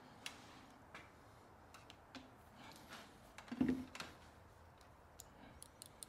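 Faint scattered clicks and taps, with one louder soft knock about three and a half seconds in: a multimeter and its test leads being handled and set down.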